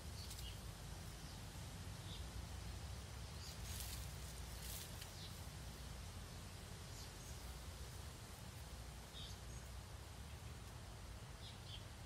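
Faint outdoor ambience: a steady low rumble with scattered short bird chirps, and a soft rustle of hands digging through loose garden soil for potatoes about four seconds in.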